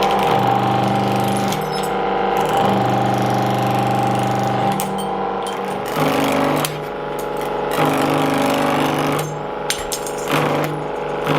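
Pullmax P13 reciprocating sheet-metal machine running, its ram clattering rapidly, with background music carrying a shifting bass line.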